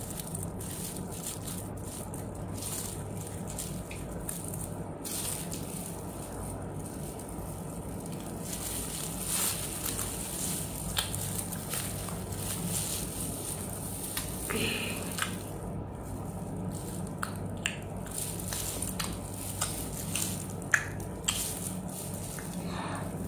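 Close-up eating sounds: chewing and biting into a soft biscuit ice cream sandwich, with scattered mouth clicks and the crinkle of thin plastic gloves, over a steady low hum.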